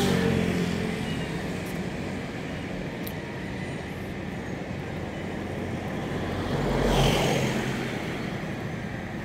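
Street traffic: motor vehicles driving past, one passing close and loud about seven seconds in.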